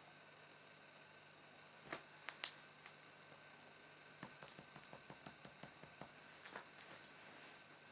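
Bengal kitten's paws and claws on a bedspread as it pounces and hops about in play: faint scattered clicks and taps, a few sharper ones about two seconds in and a quicker run of light clicks from about four to seven seconds.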